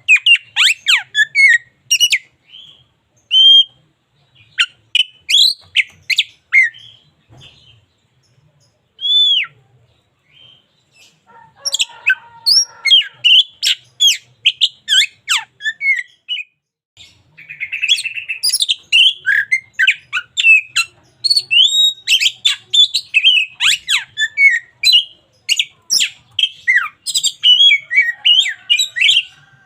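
Oriental magpie-robin singing a loud, varied song of quick whistles, chirps and sharp notes, with a harsh rasping phrase partway through. The song thins to a few scattered notes a few seconds in, then comes back dense and fast.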